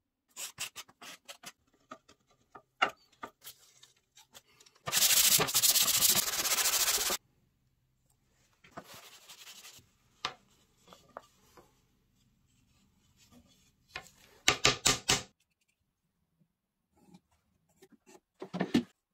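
A hardened baking-soda-and-super-glue joint in a plywood strip being sanded flush: a loud rasping stretch of about two seconds some five seconds in, fainter rubbing later and another short burst near fifteen seconds. Small clicks and knocks of the wood being handled come between them.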